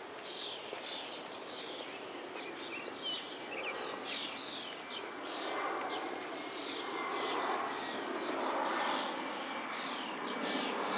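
Birds chirping in a steady run of short, quick, downward-sweeping chirps, about two a second, over a steady background rush.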